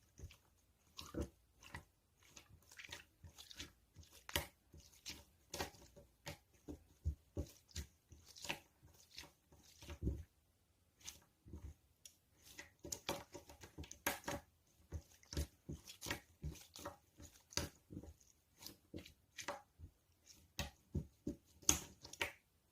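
Soft squishy toys being squeezed and pressed by hand, making an irregular run of short crackling, sticky clicks, several a second, with a brief pause about ten seconds in.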